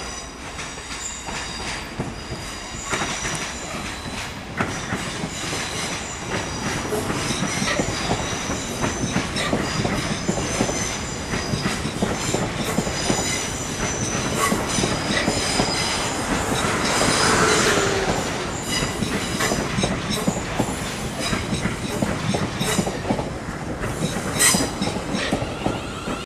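South Western Railway passenger train running alongside the platform, rumbling, with its wheels squealing in several steady high tones and clicking over the rail joints and points.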